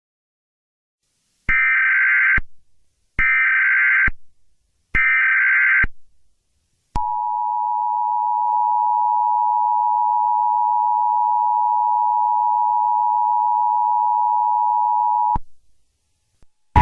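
Emergency Alert System tones: three short bursts of digital header data, about a second each, then the EAS attention signal, a steady two-tone alarm (853 and 960 Hz) held for about eight seconds. This sequence marks the start of an EAS alert, here the national periodic test.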